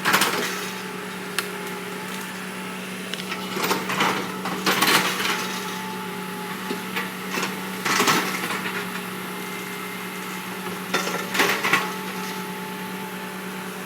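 Hand tools knocking on metal, with hammer strikes coming in several short groups, over a steady low hum.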